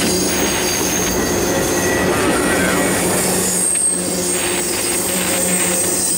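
Cars of a CSX intermodal freight train rolling past at close range: a steady, loud rumble of steel wheels on the rail, with a thin high-pitched squeal of the wheels held over it.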